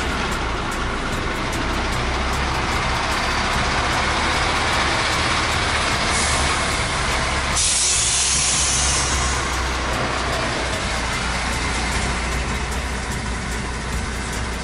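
Semi-truck's diesel engine running while the truck is manoeuvred, its noise building for several seconds. About halfway through, the air brakes let out a sharp hiss of compressed air lasting about two seconds, and the engine noise falls back.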